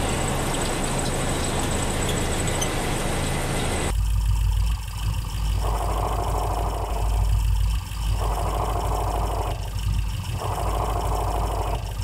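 Manual car engine idling. After about four seconds a noise from the clutch release bearing comes in three times, each for a second or so, as the clutch pedal is pressed and then stops when it is let up. The noise is the release bearing running against the pressure plate, the sign of a failing release bearing.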